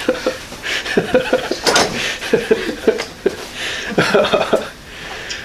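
Quiet, unclear talking and chuckling, with a few short sharp clicks or pops among it.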